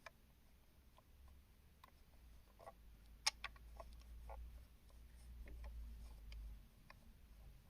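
Faint, scattered clicks and taps of small plastic LEGO pieces being handled, with one sharper click about three seconds in, over a low handling rumble.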